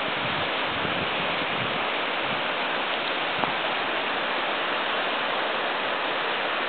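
Steady rush of a fast-flowing river, an even wash of water noise.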